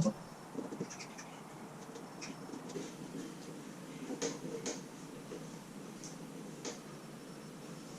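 Faint, scattered small clicks and light scraping of screws being driven back into a motorcycle's plastic body panels.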